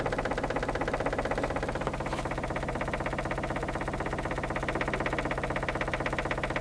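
Wooden door rattling in its frame in a fast, steady rhythm, shaken by an 8 Hz subsonic tone from eight Dayton Audio Ultimax 18-inch subwoofers. The tone itself lies below hearing; the rattle is what is heard.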